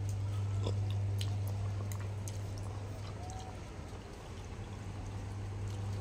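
A person slurping mie ayam (chicken noodles) into the mouth, then chewing, with a few faint clicks of fork and spoon, over a steady low hum.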